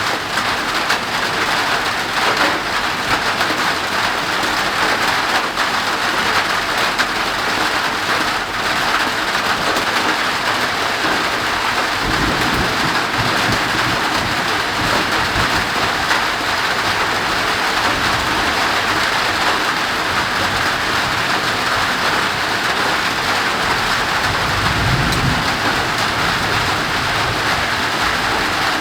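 Heavy, windless tropical downpour hissing steadily, with low rumbles of distant thunder from about twelve seconds in and again near the end.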